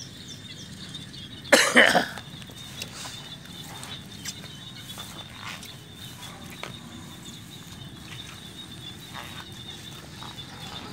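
Small frogs (nhái) calling as a steady chorus in the rain, with a thin high ringing note and scattered faint ticks. About one and a half seconds in, a short loud burst, about half a second long, stands out over it.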